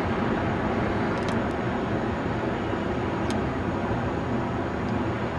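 Steady low rumble of a formation of distant tandem-rotor military helicopters, with a few faint ticks about a second in and again near three seconds.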